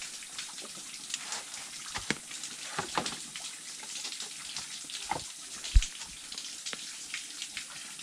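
Spring water trickling and dripping, a steady patter of drops, with a few louder splashes and one dull thump about six seconds in.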